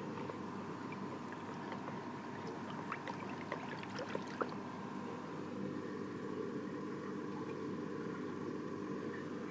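Reef aquarium running: a steady hum with moving water, and a scatter of small clicks and pops between about three and four and a half seconds in.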